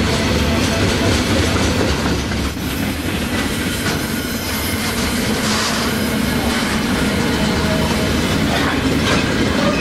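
Container wagons of a freight train rolling past close by: a steady, loud rumble of steel wheels on the rails, with occasional clacks as wheelsets cross the rail joints.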